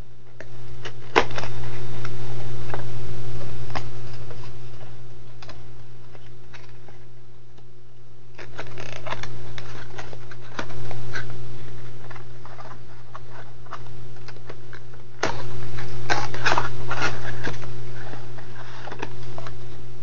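Plastic blister packaging being handled and pulled open, crinkling and clicking in bursts: once about a second in, again from about eight to eleven seconds, and most densely from about fifteen to eighteen seconds. A steady low electrical hum runs underneath.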